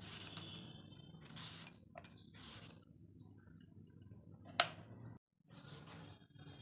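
Hand peeler shaving strips off a white radish: separate faint scraping strokes about a second apart, with one sharp click about four and a half seconds in.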